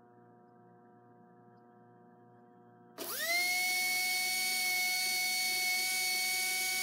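Slot car pancake-armature motor on a balancing rig, with a clip-on balancer weight on the armature. After a faint hum, it is switched on about three seconds in and spins up within a fraction of a second to a steady high whine. It runs really pretty smooth, the balancer weight close to its ideal spot.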